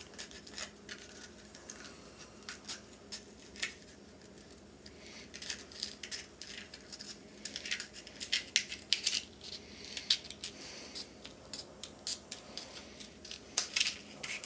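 Scissors snipping through a plastic ping pong ball along its seam: a run of short, irregular snips, busier from about halfway through.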